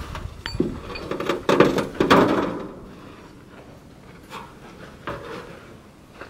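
Bent scrap sheet-metal panel being carried and dumped onto a scrap pile: a few clattering, scraping knocks about a second and a half to two and a half seconds in, then a few small knocks.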